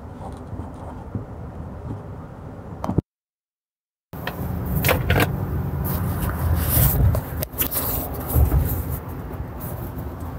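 Steady low road rumble inside a moving truck's cabin, ending in a click and about a second of dead silence where the recording is cut. After the cut comes a louder stretch of knocks and clattering over low rumble.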